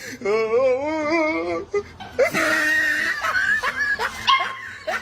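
A dog whining and yipping: a long wavering whine over the first second and a half, then a higher, steadier whine and several short yelps.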